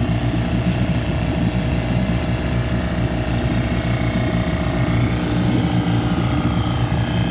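Mariner 9.9 four-stroke two-cylinder outboard motor running steadily in a test barrel of water, the water churning around its lower unit. It has just been started and is still burning off oil left in the cylinders.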